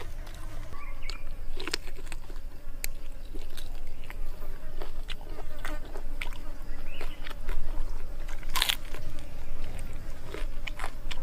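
A person eating roasted pig's head meat close to the microphone: chewing, with scattered sharp crunches and mouth clicks, the loudest crunch about eight and a half seconds in.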